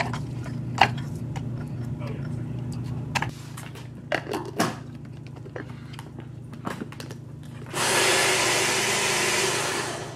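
Electric mini food chopper running for about two and a half seconds near the end, mincing peeled shallots. Before it there are scattered clicks and knocks as the plastic chopper bowl is loaded and handled.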